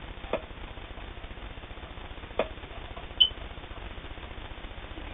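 Three separate clicks and taps from handling the all-metal Janome New Home Double Duty sewing machine as it is set for a zigzag stitch. The loudest, a short high click, comes a little past three seconds in; the machine is not running.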